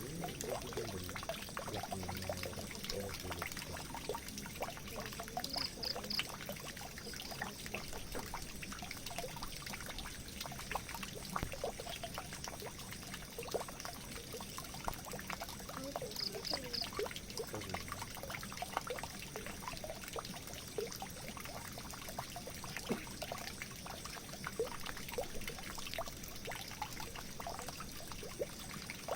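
Water pouring and trickling steadily into a drain, with small splashes and gurgles.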